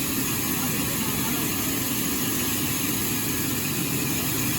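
Sawmill machinery running with a steady, unchanging mechanical hum.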